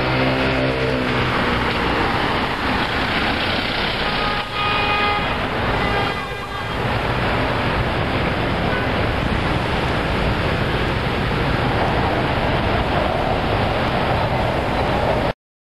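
Dense road traffic at a busy roundabout: a steady wash of engines and tyres, with a passing vehicle's engine note falling at the start. A vehicle horn sounds for about a second some four and a half seconds in, with a fainter, shorter one about a second later; the sound cuts off just before the end.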